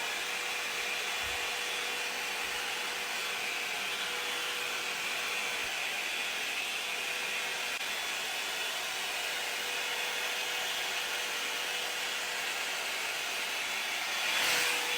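Handheld hair dryer blowing steadily, its motor giving a steady whine under the rush of air; it swells louder for a moment near the end.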